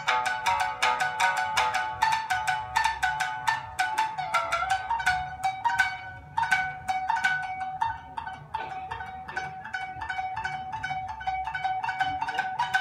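Solo shamisen struck with a plectrum, playing a fast stream of sharp, percussive notes that keep returning to one repeated open-string note. After about six seconds the playing slows and turns quieter and lighter, then builds again near the end.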